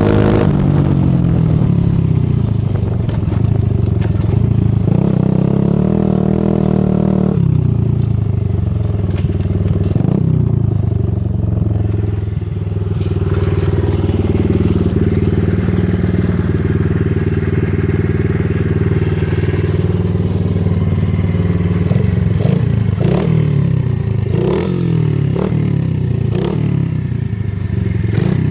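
90 cc dirt bike engine with a new exhaust, running with its pitch falling and rising and holding steady for long stretches. In the last several seconds it is revved in quick blips, about one a second.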